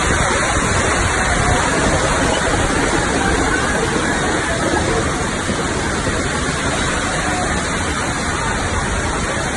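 Heavy rain falling steadily, a dense unbroken downpour.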